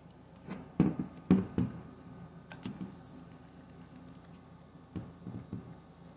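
Nikon D4 DSLR with its lens being handled and set on a desk: a handful of sharp knocks and clicks, the loudest two about a second in and half a second apart, then lighter taps later on.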